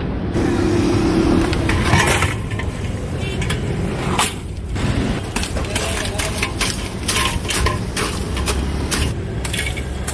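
A steel ladle scraping and clinking through crushed ice in a large steel pot, from about two seconds in: irregular metal-on-ice and metal-on-pot scrapes and knocks, over a steady street traffic rumble.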